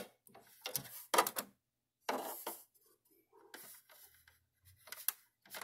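A few scattered clicks, taps and short rustles of hands handling an inkjet printer's plastic housing and cartridge bay.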